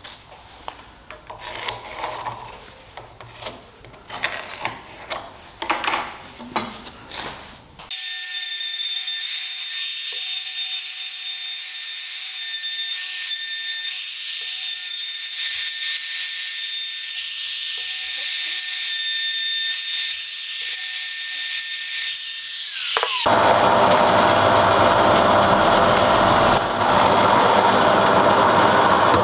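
Scattered light knocks and scrapes as a steel sword tang is handled against a wooden handle blank. About eight seconds in, a handheld router starts and runs on the wood with a steady high whine, then winds down. A drill press follows, drilling into a wooden plank, a little louder.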